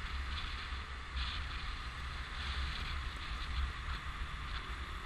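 Wind rumbling on the microphone of a camera riding on a moving motorbike, over a steady rush of road noise.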